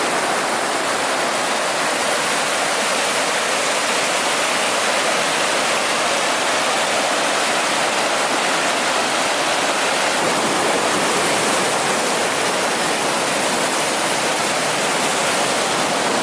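Fast river water rushing over rapids: a loud, steady rush that does not change.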